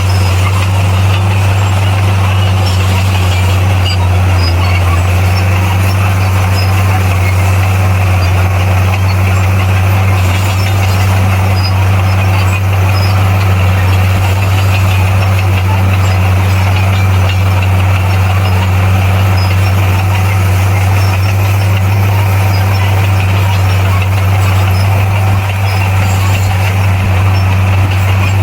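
A bulldozer's diesel engine running at a steady speed, a loud, even low drone that holds unchanged throughout.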